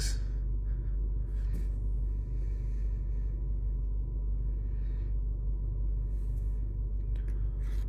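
Steady low hum inside a car's cabin, with a faint thin high tone running above it.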